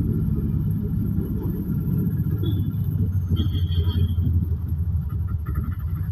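Engine and road rumble heard from inside a moving auto-rickshaw, a steady low running noise. A couple of faint, brief high tones come in about halfway through.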